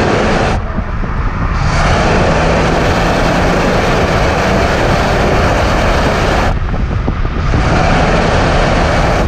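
2018 Ford Focus ST on the move, heard from a camera mounted on the outside of the car: a loud rush of wind and road noise over a low engine and exhaust tone. The rush thins out briefly about half a second in and again around six and a half seconds in.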